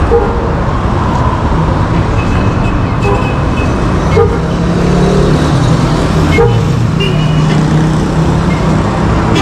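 Road traffic on a busy street: vehicle engines running close by, with short car-horn toots a few times.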